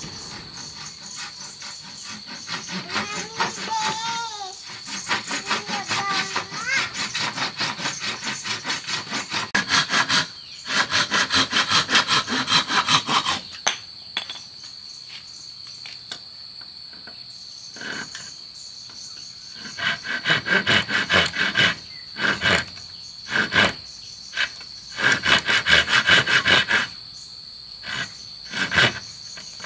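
Hand tool working wood in quick back-and-forth strokes, in several bursts of a few seconds with pauses between, over a steady high-pitched insect drone.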